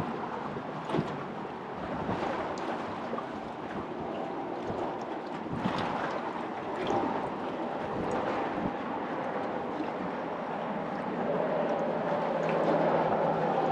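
Wind buffeting the microphone over choppy water around a boat, with a few brief sharp knocks. Near the end a steady engine hum from a truck crossing the bridge grows louder.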